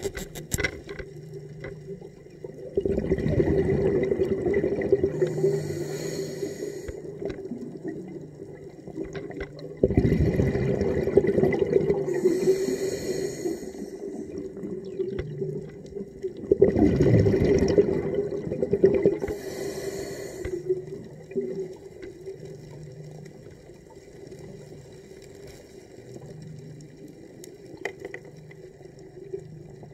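Underwater: a diver breathing through a regulator, with three long rushes of exhaled bubbles about seven seconds apart, each ending in a short high hiss.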